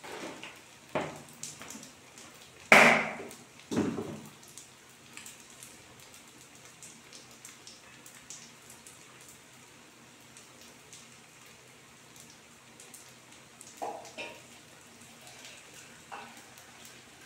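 Battered banana fritters (pazham pori) deep-frying in hot oil: a steady sizzle with fine crackling. A few louder sudden noises break in, the loudest about three seconds in, another near four seconds and two more near the end.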